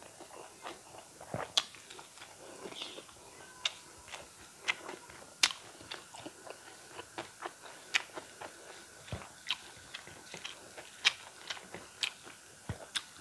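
Close-miked chewing and mouth sounds of someone eating rice and eel curry by hand, with irregular sharp wet smacks and crunches every second or so.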